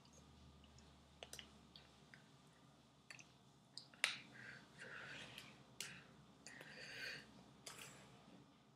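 Near silence with a few faint sharp clicks, the strongest about four seconds in, and short breathy hisses from a person signing close to the microphone: small hand, mouth and breath noises.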